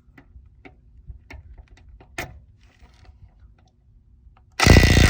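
A DeWalt DCF911 cordless 1/2-inch impact wrench, run in reverse on a truck lug nut, hammers loudly in a brief burst of about half a second near the end, breaking the nut loose. This is preceded by a few small clicks and taps.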